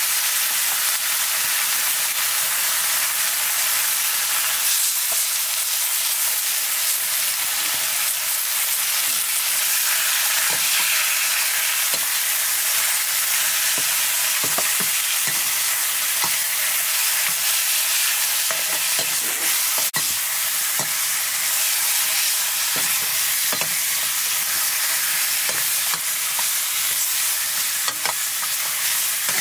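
Meat sizzling and frying in a black metal wok, a steady hiss throughout. A metal ladle now and then scrapes and knocks against the pan as the meat is stirred, more often in the second half.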